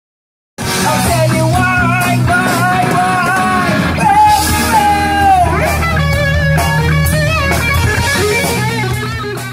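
Rock band playing with electric guitar, bass and a singing voice. The music starts abruptly about half a second in and cuts off at the end.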